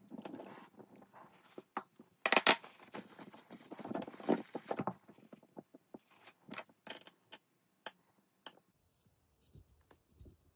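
Small metal tools and bicycle pedal parts being handled: scattered sharp clicks and clinks, with a denser stretch of rattling and scraping from about two to five seconds in.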